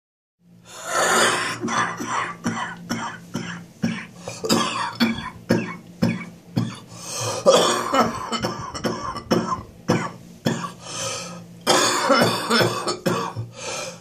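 A person's morning coughing fit: a long run of coughs, several a second, in bouts with short pauses, starting about half a second in. It is the cough of a chest that is still quite bad.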